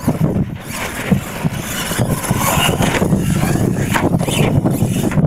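Radio-controlled monster truck running hard across a dirt track, its motors and tyres making a steady noisy drone, with wind buffeting the microphone.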